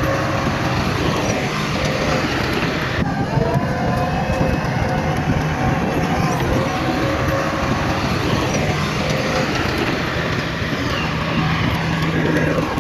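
Heavy diesel earthmoving machinery (bulldozer and dump trucks) running, a dense steady rumble with some held whining tones over it. The sound shifts abruptly about three seconds in.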